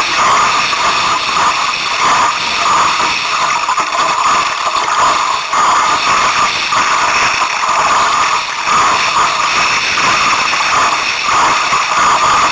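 Strong wind buffeting the microphone, with water rushing and splashing along the hull of a 1962 Sunfish sailboat driven hard by gusty wind. The loud rushing noise swells and dips with the gusts.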